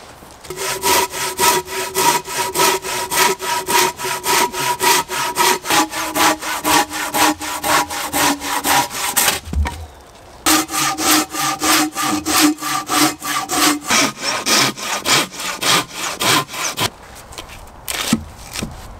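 Hand saw cutting through a log in steady back-and-forth strokes, a few a second, with the blade ringing under each stroke. The sawing breaks off for about a second midway, runs on, and stops; a couple of sharp knocks follow near the end.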